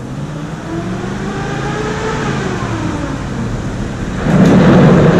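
1962 Chevrolet C30 wrecker truck's engine pulling up a gravel road, its pitch rising and falling as it accelerates. About four seconds in it gets much louder as the truck comes close.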